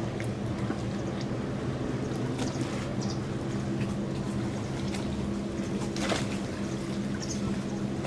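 Boat engine running steadily with a constant low hum, over the wash and splash of water, with a few short high chirps.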